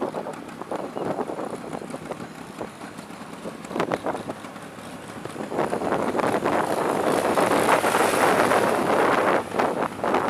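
Bajaj Classic scooter's two-stroke engine running while being ridden, with wind buffeting the microphone; the noise swells and grows louder about halfway through.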